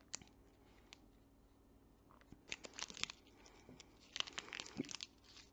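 A plastic candy wrapper crinkling as it is handled in the fingers, in two quiet bursts of crackles: one about two and a half seconds in and another about four seconds in.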